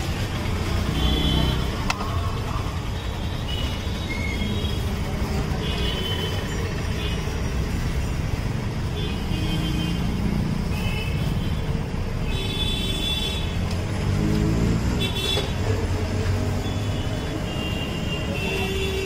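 Street traffic noise: a steady low rumble of passing engines, with short vehicle horn toots scattered throughout.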